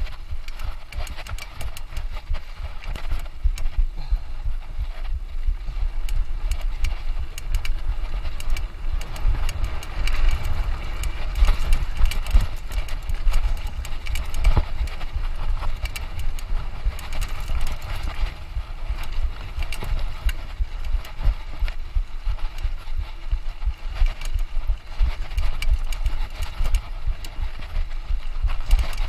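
Mountain bike rattling and knocking over rough trail while being ridden, with a steady low rumble and a dense run of jolts throughout.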